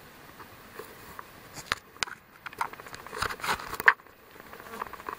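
Handling noise from a handheld camera being panned: scattered sharp clicks and short rustles, the loudest click just before the four-second mark.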